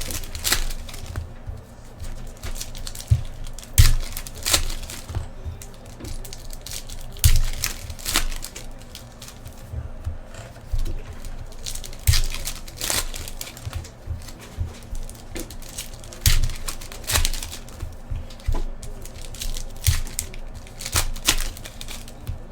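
Trading-card packs and box wrapping crinkling and tearing as they are opened and handled, in irregular rustles and sharp clicks.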